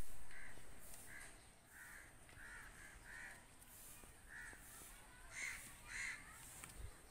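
Crows cawing again and again, short calls spaced about half a second to a second apart, with the loudest caws around five and six seconds in. A low rumble is loudest at the very start and fades over the first second or so.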